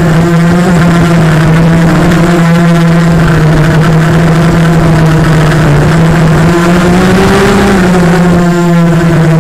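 Brushless motors and propellers of a 250-size FPV quadcopter (Cobra 1960kv motors) whining loudly at a steady pitch, rising briefly with more throttle about seven seconds in.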